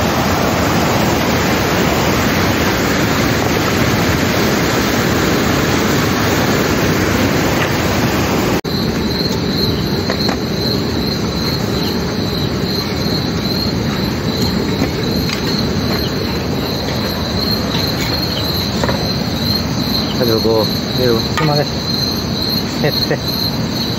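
Water rushing and splashing through a bamboo fish trap, ending abruptly about eight and a half seconds in. After that, insects trill steadily at a high pitch over a low background noise, with a few short wavering tones about twenty seconds in.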